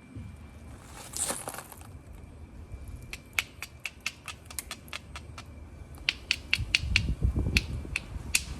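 Flint being knapped with a hammer: a run of sharp, ringing clicks, about three a second, as the hammer strikes the flint, after a brief scrape about a second in.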